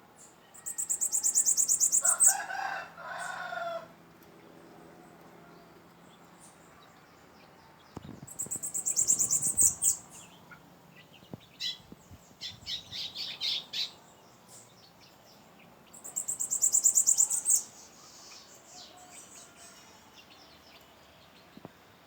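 Bananaquit (sibite) singing three times: a high, fast, buzzy trill of about a second and a half each, several seconds apart. A lower call follows the first song, and other short bird calls come in between.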